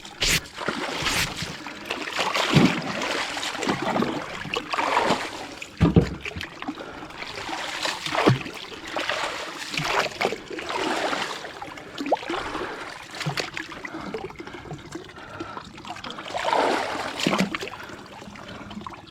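Water splashing and trickling in repeated surges, roughly one every second or so, with a few low knocks.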